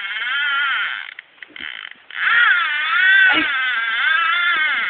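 Fishing reel's drag running as a big red drum pulls line off the spool, its pitch wavering up and down with the fish's run. It breaks off about a second in and starts again a second later.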